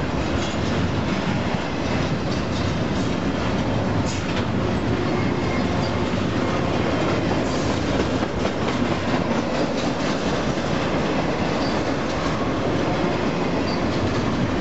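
Double-stack container train's well cars rolling past: a steady rumble of steel wheels on rail with scattered clanks and a few brief high squeaks.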